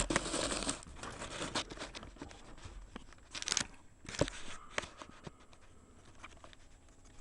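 Handling noise: short bursts of rustling with scattered light clicks and a sharp tap about four seconds in.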